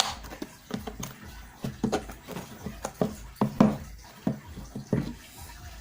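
A cardboard product box being opened and handled by hand: irregular taps, knocks and scrapes of packaging.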